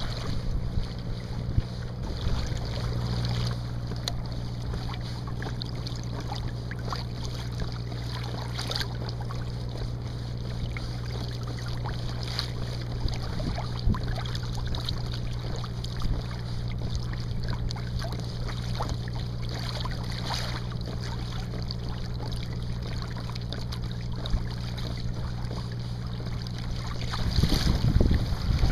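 Steady low drone of a boat engine running, with water slapping against a kayak hull and wind on the microphone. The drone cuts off near the end, leaving louder wind and water.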